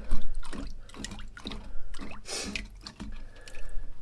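Water splashing and dripping in a sink part-filled with water as a bluegill is scraped to descale it under the water. A sharp splash comes right at the start, then irregular smaller splashes and drips.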